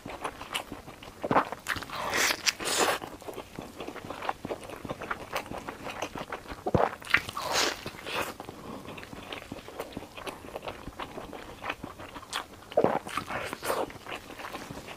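Crunchy bites into a crisp fried beef-filled flatbread (Chinese meat pie): three bursts of crackling crunch, with chewing and small mouth clicks between them.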